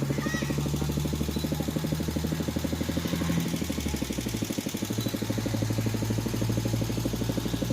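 A small engine running steadily with a rapid, even pulse; its low tone shifts slightly about four seconds in.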